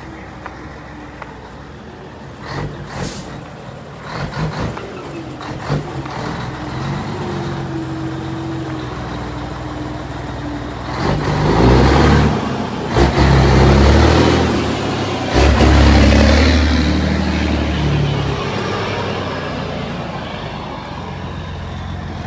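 Scania 112H truck's 11-litre six-cylinder diesel engine running as the rig turns and drives past close by, with a few sharp knocks and rattles in the first several seconds. It grows much louder about halfway through, with sudden surges of throttle, then fades to a lower run.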